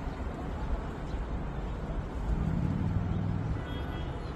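Low steady rumble of vehicle traffic, with a vehicle's engine hum swelling for about a second and a half near the middle.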